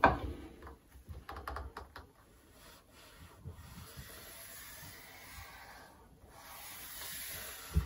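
Pencil scraping along a length of PVC pipe as a straight line is drawn down it: a faint, steady scratchy hiss in two long strokes, broken briefly about six seconds in. Light taps from handling the pipe come first, and a short knock comes just before the end.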